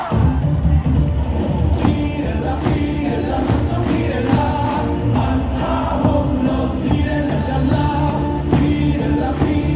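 Cheer song playing over the stadium speakers with a steady beat, the crowd in the stands singing along; the music starts suddenly right at the beginning.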